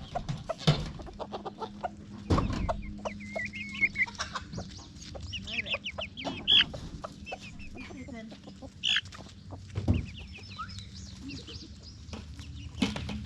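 A flock of laying hens clucking and squawking, with many short, high calls. A few sharp knocks come through, around the start, after about two seconds, near ten seconds and near the end.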